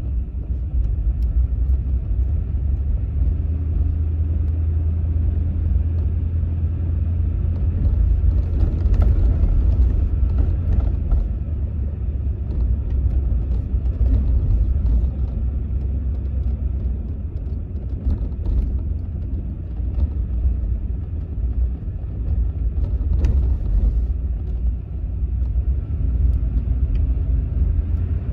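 1982 Cadillac Fleetwood Brougham driving slowly, heard from inside the cabin: a steady low engine and road rumble.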